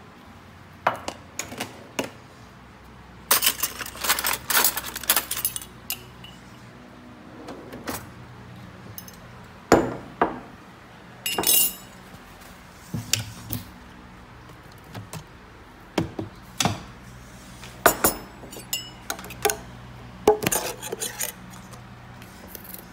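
Kitchen crockery and utensils being handled: sharp clinks and knocks of glass and dishes, with a quick run of rattling clatter about three to six seconds in and single clinks spread through the rest.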